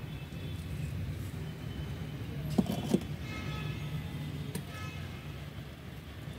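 Steady low rumble of distant road traffic, with two sharp clicks about a third of a second apart near the middle and a fainter click a couple of seconds later.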